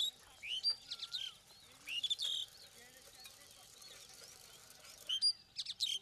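Birds calling: sharp, high chirps and rising whistled notes in four short bursts, loudest right at the start and again near the end.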